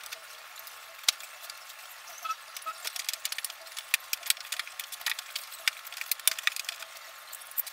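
Scattered light clicks and clinks of hand tools and metal and plastic parts as a scooter's front end is reassembled, with one sharper knock about a second in.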